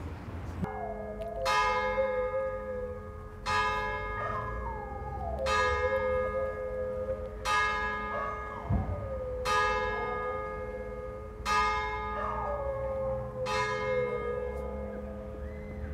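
Church bell tolling slowly, struck about every two seconds, each stroke ringing on into the next.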